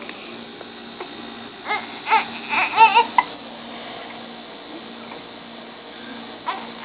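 A baby with the hiccups gives a cluster of short, wavering whimpers and cries about two seconds in, then hiccups once near the end.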